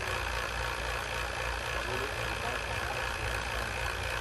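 A 5 CFM residential vacuum pump running steadily, evacuating an air-conditioner line set as the micron gauge falls through about 3,500 microns.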